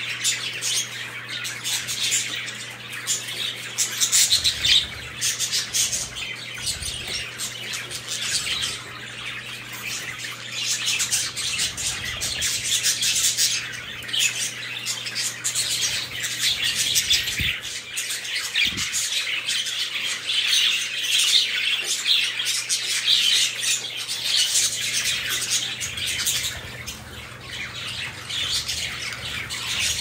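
Pet budgerigars chattering without a break: a busy, continuous stream of high warbling chirps and squawky calls.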